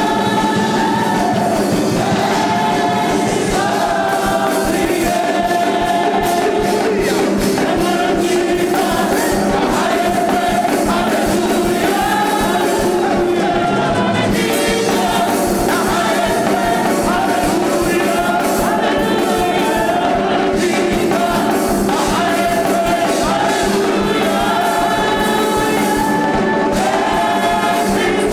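A choir singing a lively gospel praise song with live band accompaniment, drums keeping a steady beat.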